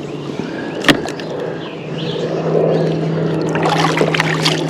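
A flathead catfish being swung aboard a kayak: a sharp knock on the hull about a second in, then splashing and rustling that grows louder, over a steady low hum.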